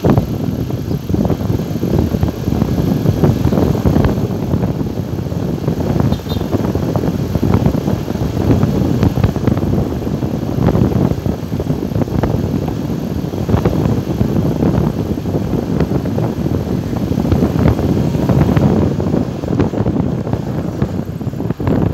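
Wind buffeting a phone microphone held out of a moving car's window, with tyre and road noise underneath: a loud, gusty rumble that comes and goes.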